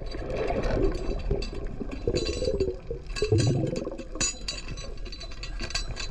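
Underwater sound: bubbling, gurgling water with many sharp metallic clicks and clinks scattered through it, and a louder low gurgle of bubbles about halfway through. The clinking is the weird noise, like metal clinking around, heard under water during this dive.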